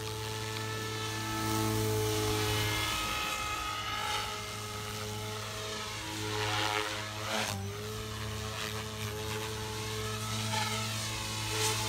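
SAB Goblin 420 electric RC helicopter in flight: a steady rotor drone with the whine of its electric motor and tail rotor. The blades swell into a whoosh about six to seven seconds in, the pitch dipping briefly, with a shorter swell near the end.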